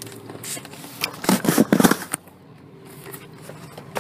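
Cardboard shipping box handled and torn open, with a loud burst of crackling, scraping cardboard about a second in that lasts about a second.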